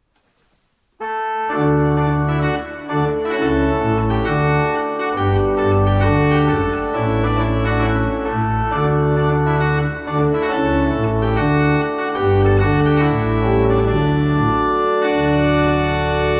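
Electronic organ playing loudly: sustained chords over deep, changing bass notes, starting suddenly about a second in.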